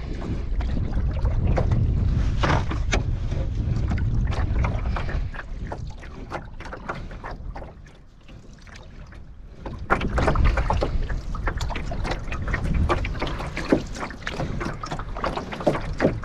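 A small fishing boat on open water: wind rumbling on the microphone, with water lapping and many small knocks and splashes against the hull. The sound dips quieter about halfway through and picks up again a couple of seconds later.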